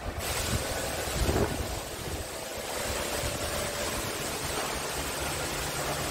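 Wind noise on the microphone: a steady rush with choppy low buffeting. A steady low hum joins about four seconds in.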